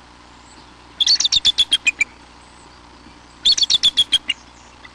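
A bird calling in two quick series of about ten sharp, high chirps each, about a second long, the second series starting roughly two and a half seconds after the first.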